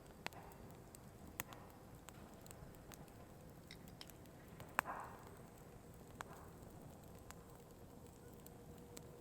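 Firewood burning: sparse sharp crackles and pops over a faint steady hiss, the loudest pop about halfway through with a brief hiss after it.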